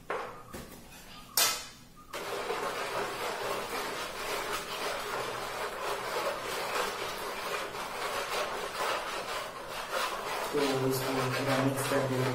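A small metal spoon stirring salt into water in a plastic tray, a steady scraping rub of spoon and undissolved salt against the tray's bottom. A single sharp knock comes about a second and a half in, and a voice is heard near the end.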